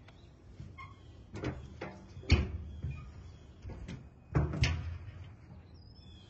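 A few dull knocks and thumps at uneven intervals, the loudest about two seconds in and a pair of them just after four seconds, with faint bird chirps near the end.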